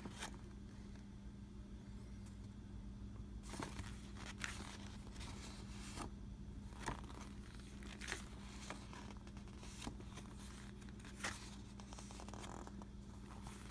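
Faint rustling of paper: the pages of a board-game rule book being leafed through, with scattered soft swishes over a steady low hum.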